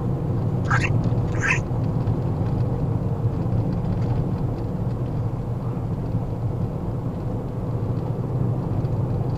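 Steady low road and engine drone inside a moving vehicle's cab, with two brief high squeaks a little under a second and about a second and a half in.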